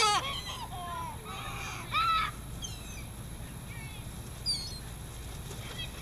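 Gulls calling overhead: a run of repeated squealing calls, loudest right at the start and again about two seconds in, with fainter higher calls in between and near the end.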